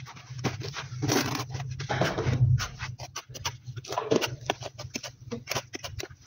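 A hand trowel scooping and scraping cement tile adhesive onto a wall in short rasping strokes, with frequent sharp clicks and taps of the blade.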